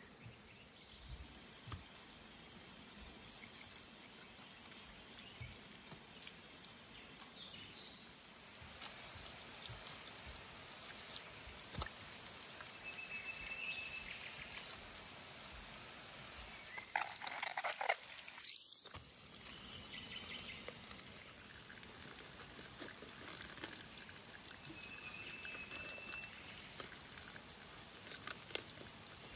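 Water running from an outdoor garden tap, a quiet steady trickle and splash, with a brief louder clatter about two-thirds of the way through and now and then a short high chirp.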